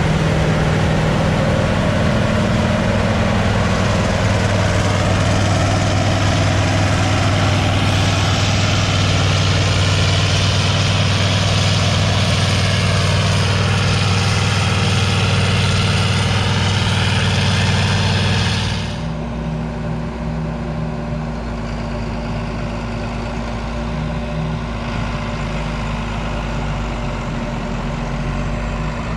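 Heavy diesel farm machinery running steadily with a strong low hum and a dense hiss on top. About nineteen seconds in the sound changes abruptly to a quieter diesel engine with much less hiss.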